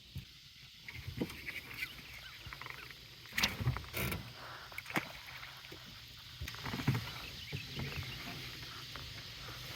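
Scattered knocks and clatters of fishing gear being handled in a boat, a few sharp bumps among lighter rattles.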